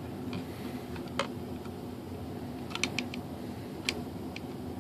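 Small sharp clicks and taps of needle-nose pliers and thin wire being worked against a composite tail fin: one click about a second in, then a quick cluster near three seconds and another click near four seconds. A steady low hum runs underneath.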